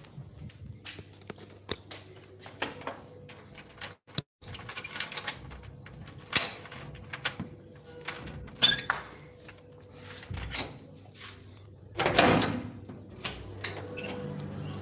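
Knocks, clicks and rubbing from a phone being handled and moved about, with a louder rustle about twelve seconds in.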